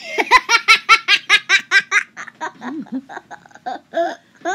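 Toddler girl laughing hard: a fast run of loud laughs, about six a second, for the first two seconds, then softer, scattered giggles.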